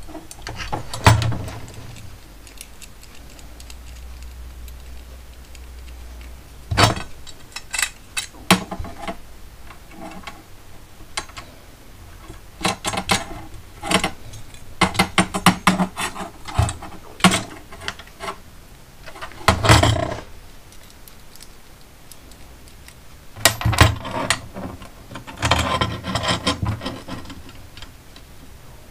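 Brass battery terminal clamps and copper pipe clinking and knocking against each other and the bench as they are handled and fitted together, in irregular clicks with short clusters of small metal taps.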